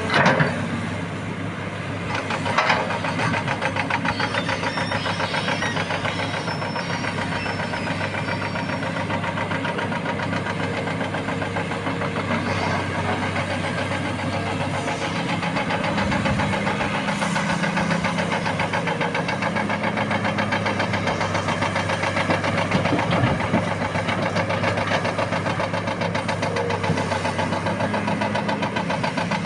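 Hitachi Zaxis 330 excavator's diesel engine running steadily under work, getting a little louder about halfway through. Two sharp knocks come near the start.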